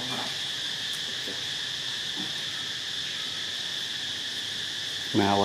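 Steady, high-pitched chorus of insects droning without a break. A person's voice begins near the end.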